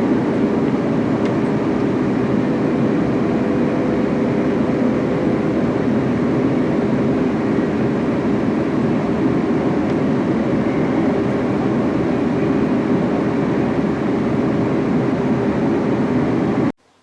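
Train running at a steady speed: a constant rumble and rush of noise with a faint steady hum.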